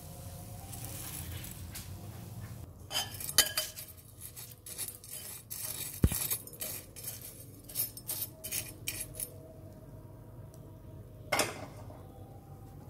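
Steel perforated skimmer stirring a dry fried snack mix in a glass bowl: a run of clinks and scrapes of metal against glass starting about three seconds in and stopping about nine seconds in, with one more clink near the end.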